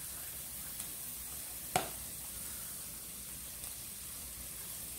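Diced onion sizzling in olive oil in a hot skillet, a steady hiss, with one sharp click a little under two seconds in.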